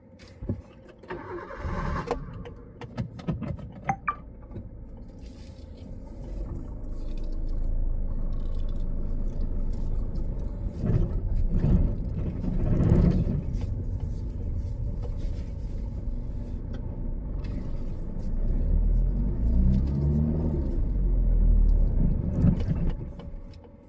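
Car running, heard from inside the cabin: a low engine and road rumble that swells about six seconds in and drops away just before the end, with scattered clicks and knocks in the first few seconds.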